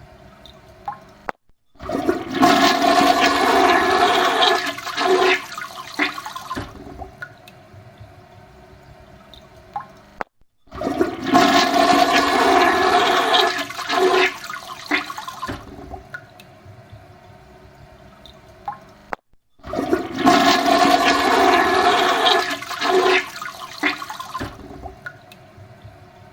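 Toilet flushing three times, about nine seconds apart. Each flush is a loud rush of water lasting about five seconds, then fades into a quieter trickle of refilling water with occasional drips.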